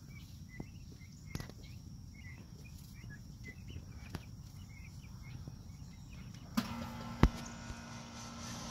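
Young Heritage Bronze turkeys (poults) peeping softly, a run of short high calls. About six and a half seconds in, a steady low hum and hiss starts, and a sharp knock comes a moment later.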